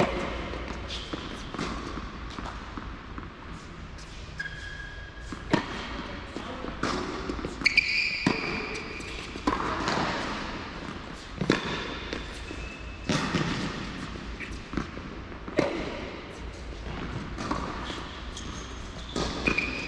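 Tennis balls struck by rackets and bouncing on an indoor hard court: sharp, irregular pops that echo in the large hall.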